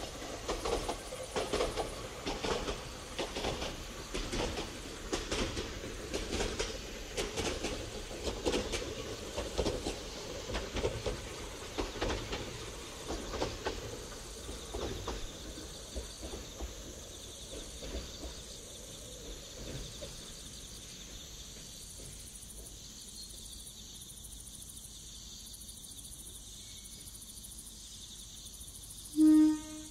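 Kanbara Railway electric train passing, its wheels clattering over the rail joints; the clatter thins out and fades away over about twenty seconds as the train moves off, leaving steady insect chirping. Near the end a train horn sounds one short, loud blast.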